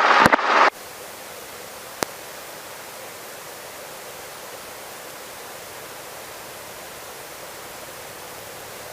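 Steady, even hiss of a helicopter's intercom audio feed, with a single sharp click about two seconds in; no rotor or engine beat comes through.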